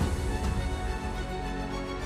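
Background music: held tones over a strong bass with a soft beat.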